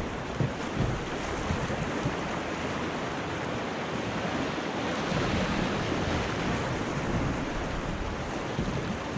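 Fast, storm-swollen river water rushing and churning through a rapid around a kayak, with wind on the microphone. The rush grows louder about five seconds in.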